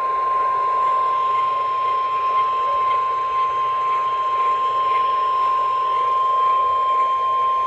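Emergency Alert System attention signal: a single steady tone at about 1 kHz, the National Weather Service's 1050 Hz warning alarm tone, heard through AM radio hiss. It signals that an urgent alert, here a flash flood warning, is about to be read.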